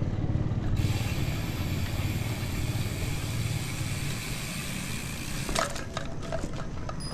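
Bicycle rolling along a concrete lane: a steady rolling and rattling noise with ratcheting clicks from the freewheel, and a short run of sharper clicks and knocks about five and a half seconds in.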